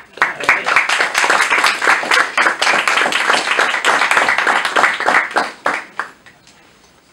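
Audience applauding: a round of clapping that sets in right away and dies away about six seconds in.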